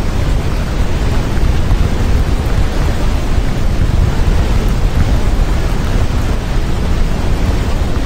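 Loud, steady white-noise track without pitch or breaks, heavier in the low end: the masking layer of a subliminal affirmation recording.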